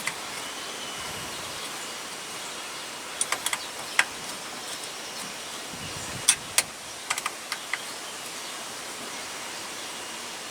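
Light, sharp metal clicks and ticks in small clusters, from a 4 mm Allen wrench working the bolts of a steering wheel puller, over a steady background hiss.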